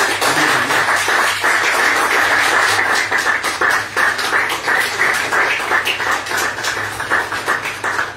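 Audience applauding, thinning out into a few scattered claps near the end.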